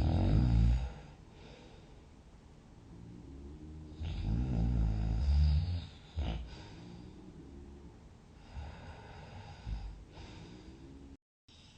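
A sleeping person snoring loudly: one snore right at the start and a longer one about four seconds in, with softer breathing between and after. The sound drops out completely for a moment near the end.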